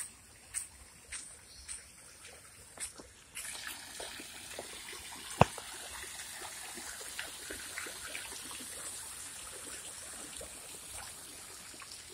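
Footsteps on a garden path at about two steps a second, then, from about three seconds in, the steady splashing of a tiered garden fountain falling into its pool. One sharp click near the middle is the loudest sound.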